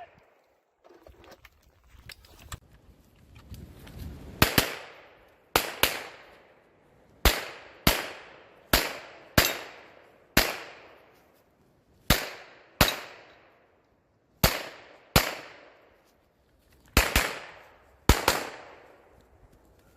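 Pistol shots during a practical shooting stage: about fifteen shots, mostly fired in pairs about half a second apart, with short pauses between pairs, each shot trailing off in an echo.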